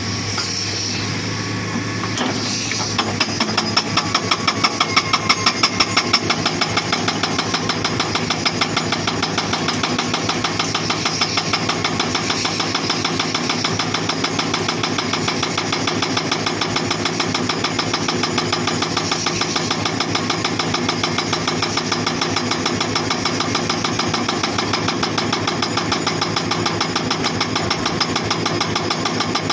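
Hydraulic breaker on a Hitachi Zaxis 240 excavator hammering rock in a fast, steady train of blows over the running diesel engine. The hammering starts two to three seconds in.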